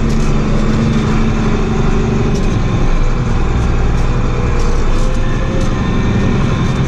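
John Deere 4450's turbocharged six-cylinder diesel engine running as the tractor is driven, heard from inside the cab. The engine note shifts about two and a half seconds in.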